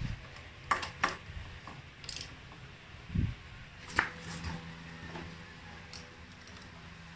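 Light metallic clinks and ticks of hand tools on the scooter's front brake caliper and disc-rotor bolts: a few sharp clicks and one dull knock. A faint steady hum starts about four seconds in.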